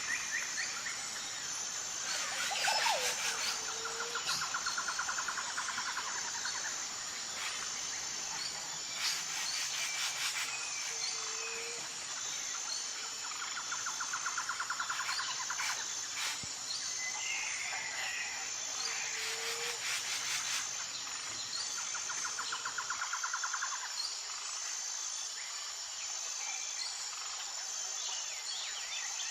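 Morning birdsong: several birds calling, with a buzzy trill repeating every few seconds among short chirps and whistles. A steady, high, pulsing insect drone runs beneath.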